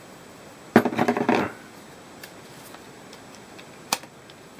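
Hard plastic parts of a cordless multi-tool's dust extraction port being handled: a short clatter of knocks and clicks about a second in, then a single sharp click near the end.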